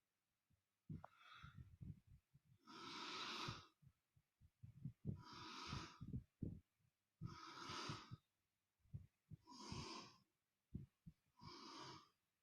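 A faint, breathy hiss repeated six times, about every two seconds, each lasting under a second, with soft low knocks in between.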